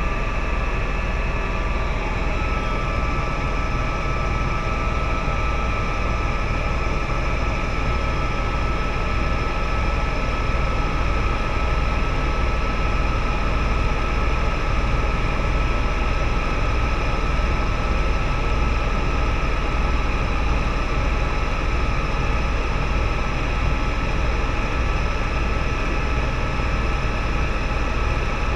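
Helicopter in flight heard from inside the cabin: a steady low rumble of rotor and engine with a thin, constant high whine.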